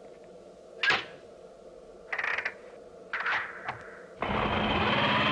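Animated sci-fi door control panel sound effects: a single click about a second in, then two short runs of electronic blips. About four seconds in, loud sustained music comes in.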